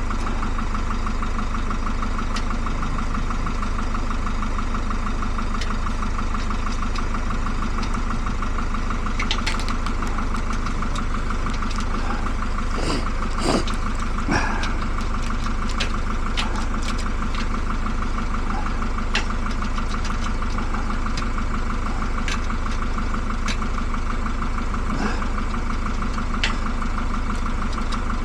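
A machine running steadily with an even hum, with scattered light clicks and taps over it.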